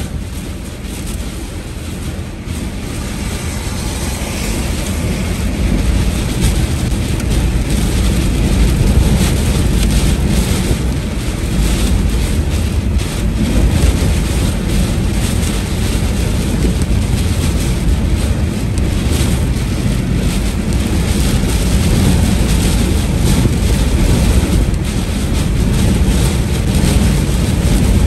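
A vehicle driving through a heavy downpour: rain drumming on the body and windshield over the noise of the road and wind, growing louder over the first several seconds and then holding steady.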